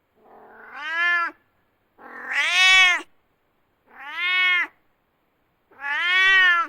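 A domestic cat meowing four times. Each meow lasts under a second and rises and then falls in pitch.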